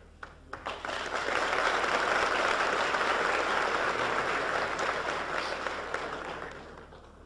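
A congregation applauding: a few scattered claps swell within a second into full, steady applause, which dies away near the end.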